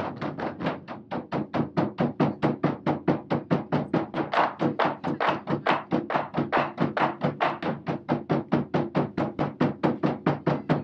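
An ensemble of Japanese taiko drums (nagado-daiko) beaten with wooden bachi in an even, driving beat of about five strokes a second.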